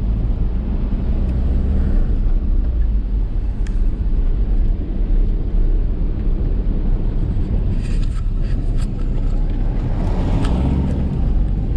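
Steady low engine and road rumble heard from inside a moving vehicle, with a few light clicks or rattles about eight seconds in.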